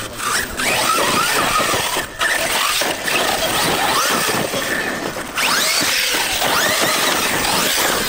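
Arrma Kraton 6S BLX RC truggy driven hard on dirt: its brushless motor whines up and down with the throttle over tyres spraying dirt and gravel, easing off briefly about two seconds and five seconds in.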